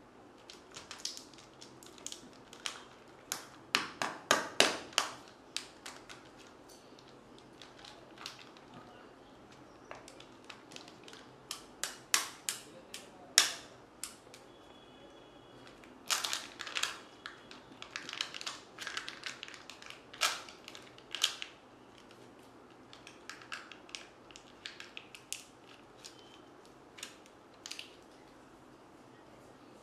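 Plastic wrapper of a Kinder Joy egg crinkling and tearing under the fingers in bursts of sharp crackles, then the plastic egg shell being pulled open.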